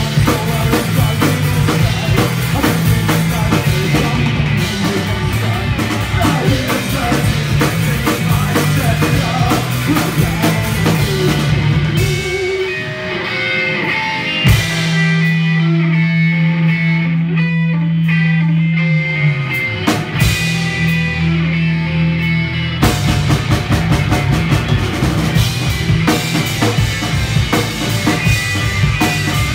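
A punk rock band playing live and loud on electric guitar, electric bass and drum kit. About twelve seconds in, the drums and cymbals mostly drop out while held guitar and bass notes ring on. The full band crashes back in about ten seconds later.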